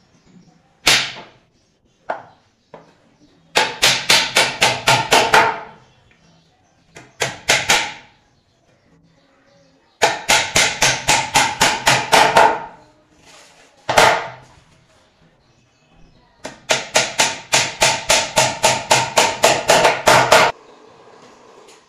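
Hammer driving nails into a plywood shelf panel: three long runs of quick blows, about six a second, with a few single knocks between them.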